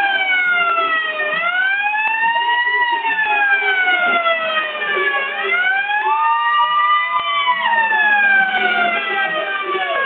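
Wailing siren sweeping slowly down and up in pitch, each fall or rise lasting about two seconds.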